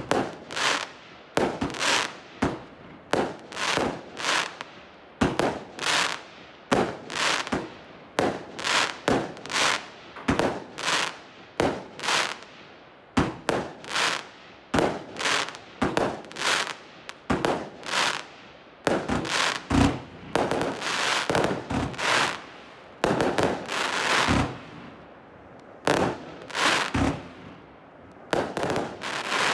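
Consumer firework battery (compound cake) firing shot after shot: a steady run of bangs about two a second, each with a short fading tail, thickening into denser bursts with longer crackling tails at times.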